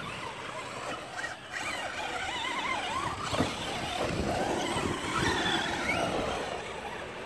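Radio-controlled off-road cars racing on a dirt track: their motors make a whine that rises and falls quickly with the throttle, over the rough noise of tyres on loose dirt.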